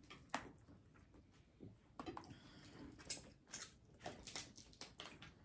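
Near silence, broken by faint, scattered small clicks and taps, as of eating and handling food and drinks at a table.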